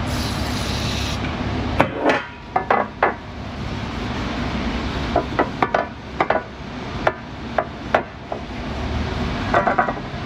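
Hand tools knocking and clinking against metal parts during shop work: irregular taps and knocks, a few of them ringing metallic clinks, over a steady background hiss.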